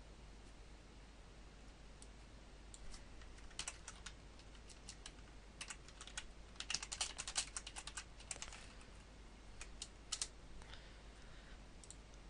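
Faint computer keyboard typing: scattered single keystrokes, then a quick run of keystrokes about seven seconds in, as a file name is typed.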